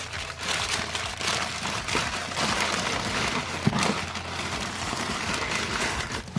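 Packing material being handled and crumpled, with dense, irregular crinkling and rustling.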